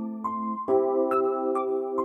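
Soft instrumental background music with sustained keyboard or piano chords; a new, louder chord comes in a little after half a second.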